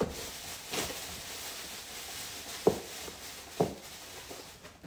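Cardboard box and its packing rustling and scraping as hands dig into it, with three sharp snaps or creaks, the loudest about halfway through.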